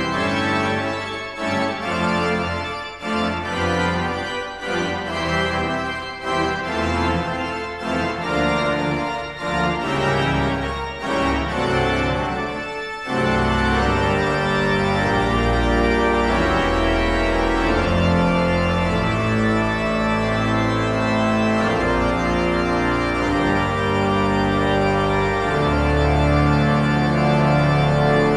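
Background instrumental music of organ-like keyboard chords. The first part is choppy, with short breaks between chords. About halfway through it changes to longer held chords.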